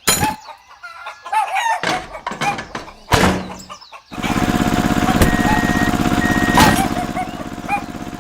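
Chicken clucks and a few knocks, then a small engine starts abruptly about four seconds in and keeps running with a fast, steady putter.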